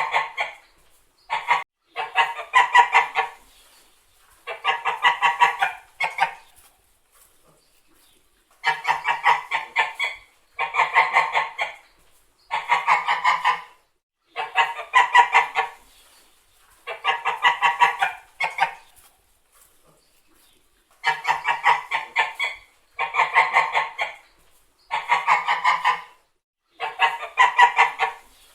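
Domestic white geese honking in repeated bouts of rapid, harsh honks, each bout lasting one to two seconds, with short pauses between and a couple of longer pauses.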